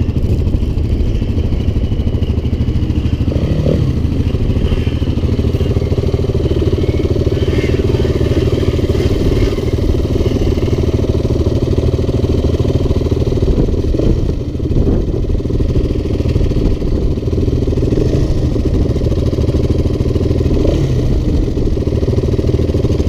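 Quad and dirt bike engines running steadily at idle.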